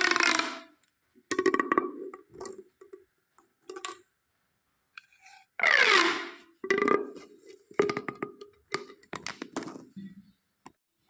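Corrugated plastic pop tubes being stretched and squeezed: irregular runs of sharp pops and clicks, with a pitched creak gliding downward about six seconds in.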